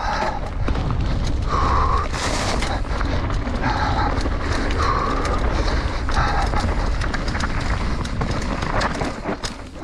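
Mountain bike descending a dirt singletrack, heard from a camera riding on the bike or rider: wind on the microphone as a steady low rumble, with the rattle and knocks of tyres and bike going over roots and bumps.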